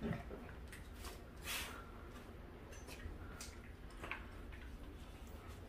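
Quiet, scattered ticks and scuffs of dogs' claws and paws moving on a wooden floor, over a faint low hum.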